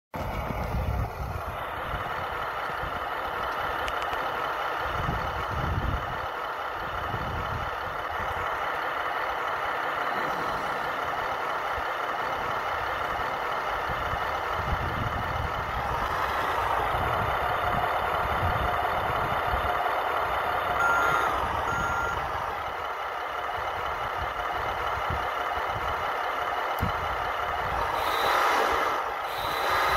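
Radio-controlled HG-P408 Humvee model truck giving off a steady electronic whine, with two short beeps a little past two-thirds of the way in.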